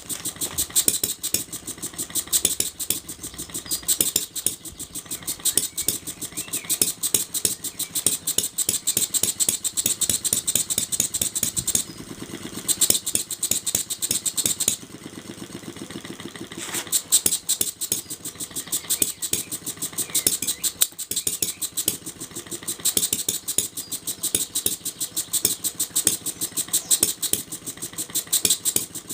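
Small single-cylinder four-stroke model engine (JONAS vertical) running, a rapid, even train of sharp firing beats with a mechanical rattle. Its beat changes for a few seconds near the middle, then carries on as before.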